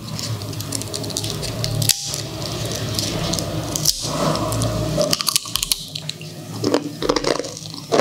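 Crisp, deep-fried achu murukku (rice-flour rose cookie) crackling and snapping as it is broken apart by hand close to the microphone; the crackle thins out after about five seconds.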